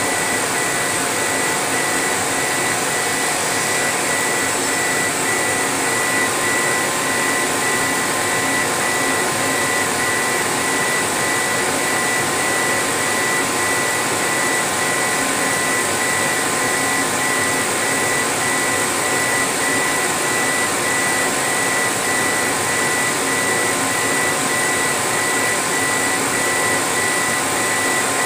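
CNC laser engraving machine running as its head scans back and forth engraving a wood sheet: a steady rushing machine noise with a faint high tone that pulses on and off evenly.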